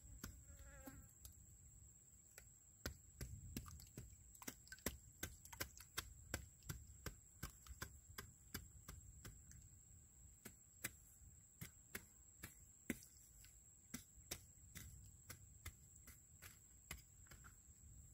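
Faint, irregular sharp clicks, about two or three a second, of weeds being cut and pulled by hand with a small sickle at the edge of a field bed.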